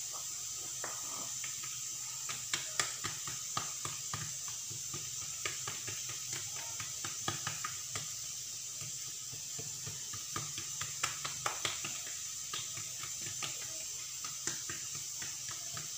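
Hands working oiled msemen dough strips on a granite countertop: scattered soft sticky clicks and taps over a steady hiss.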